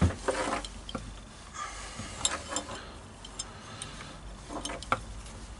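Small clicks and taps of white plastic CCTV camera parts being handled on a workbench, with a thump at the start.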